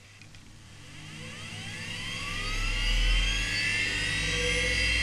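Quantum Bigfoot CY 3240AT, a 5.25-inch 3,600 rpm hard drive, spinning up at power-on: a whine that rises steadily in pitch and levels off near the end.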